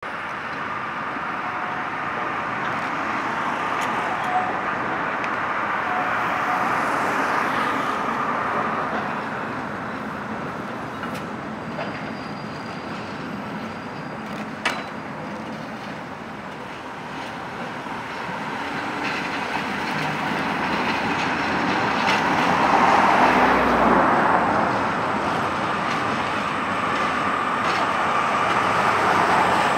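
Trams, a Tatra T3 and a Škoda 15T, running on street tracks with road traffic passing. The rolling noise swells and fades as each vehicle goes by, loudest a little after the middle and again near the end.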